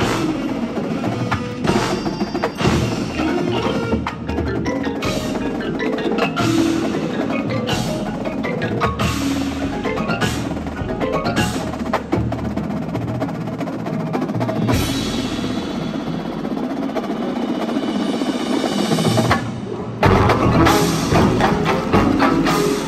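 A drum and bugle corps playing live: front-ensemble mallet percussion and percussion strikes over held tones. It drops out briefly near the end, then comes back with a loud hit.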